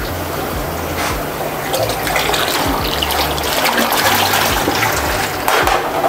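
Water pouring and splashing from a bucket into an aquarium as a load of corydoras catfish is tipped in; the pour gets heavier about two seconds in.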